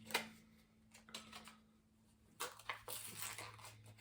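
Faint handling sounds of a small plastic tube of solder: scattered light clicks and rustles, busiest in the second half, over a low steady hum.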